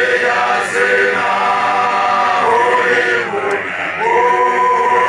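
A group of men singing together in a chant-like chorus: long held notes in phrases of a second or two, with a new phrase starting about four seconds in.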